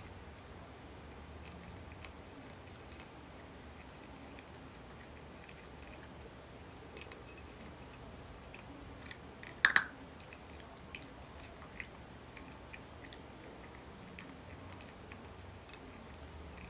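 Cat crunching dry kibble from a raised bowl: scattered small clicks and crunches of chewing. About ten seconds in there is one sharp double click, much louder than the rest.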